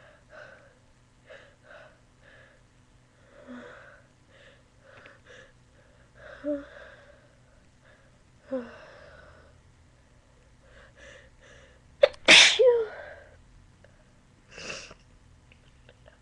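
A person's short, soft catching breaths as a sneeze builds, with a couple of brief gasps. A loud sneeze bursts out about twelve seconds in, then a shorter, softer burst of breath follows.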